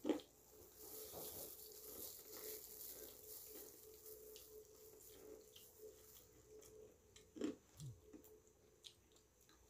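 Faint eating sounds: chewing, and plastic-gloved hands pulling apart fried chicken, with small scattered clicks and squishes over a low steady hum.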